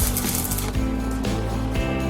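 Background music with a steady beat: bass notes changing about twice a second, with a bright crash at the start.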